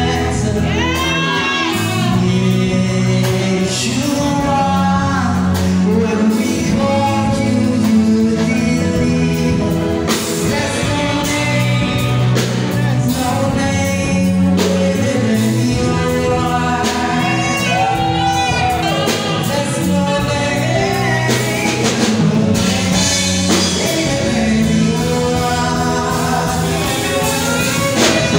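Man singing a gospel worship song into a microphone through a PA, over instrumental accompaniment of sustained chords.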